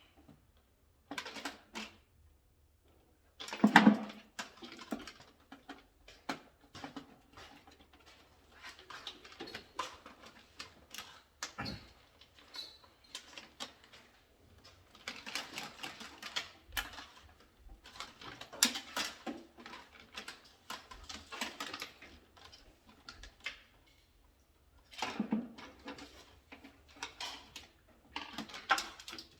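Irregular clicking, rustling and clattering of hands working with tools, wires and plastic fittings during electrical wiring practice, with a louder knock about four seconds in.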